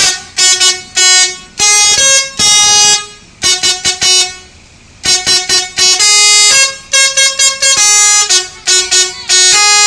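Indonesian bus 'telolet' multi-tone air horn playing a loud jingle: short honks at several different pitches in quick clusters, broken by short pauses between phrases.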